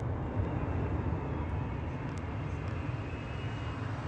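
A steady low outdoor rumble with no distinct blasts, and a few faint high ticks about two seconds in.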